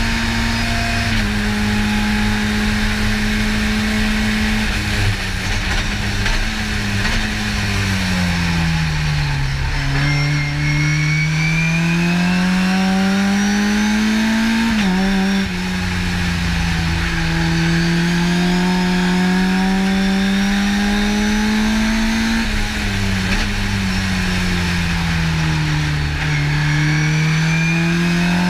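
Race car engine heard from inside the cockpit, running hard on track. The revs fall twice as the car slows and shifts down, about a third of the way in and again near the end, and climb in between, with a quick gear change near the middle. A high whine rises and falls with the revs.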